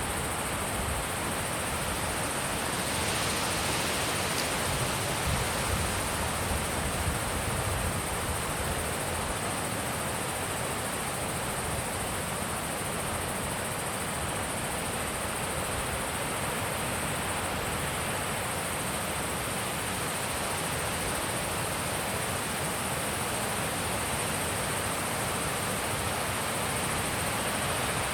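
Wind blowing steadily, with low rumbling gusts on the microphone in the first several seconds and a constant high hiss.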